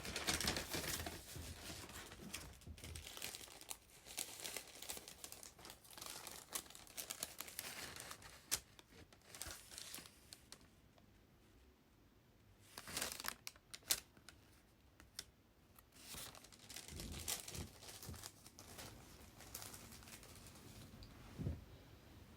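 Packaging crinkling and rustling as it is handled, in uneven spells with a quieter stretch about halfway through.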